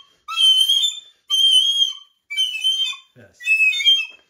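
Small handheld toy whistle blown hard in four shrill blasts, each with several wavering tones sounding at once over a breathy hiss. It is a deliberately annoying noise.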